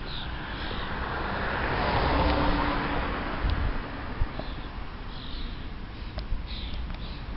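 A car passing on a nearby road, its tyre and engine noise swelling about a second in and fading away by the middle, with small birds chirping now and then.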